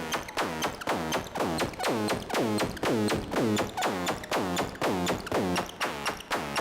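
Elektron Analog Four/Analog Keys analog synthesizer playing an EDM preset: a repeating sequence of short plucked notes, each swept down in tone, with regular ticking percussion on the beat.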